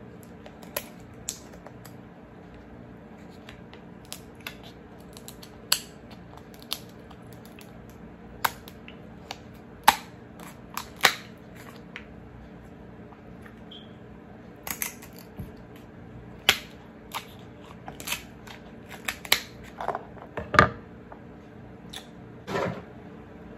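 Kitchen scissors snipping and cracking through cooked king crab shell: irregular sharp snaps and crackles, some louder than others, over a faint steady hum.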